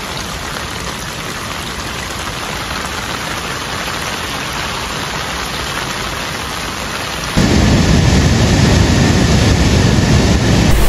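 Steady rain falling. About seven seconds in it gives way suddenly to a louder, deeper rush of a swollen stream pouring down over rocks.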